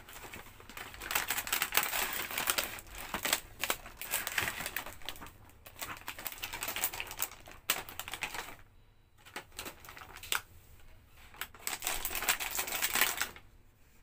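Cardboard box and clear plastic packaging tray being handled and unpacked: crinkling, rustling and clicking in irregular bursts with short pauses.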